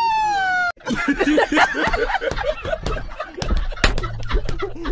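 A drawn-out falling call cut off abruptly under a second in, then people laughing and chuckling in short, broken bursts.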